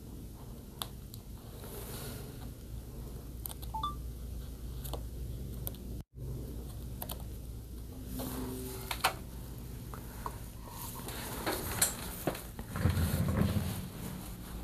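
Scattered light clicks and taps of small-object handling over a steady low hum, with a few faint short beeps about four seconds in. A brief cut to silence comes about six seconds in, and a louder scuffing rustle about thirteen seconds in.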